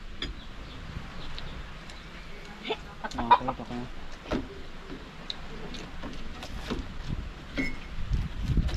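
Chickens clucking, a cluster of short calls about three seconds in and a few more scattered through, among light clicks and knocks.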